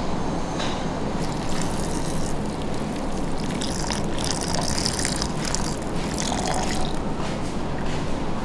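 Liquid pouring and trickling into a plastic measuring jug for about six seconds, over a steady low background rumble.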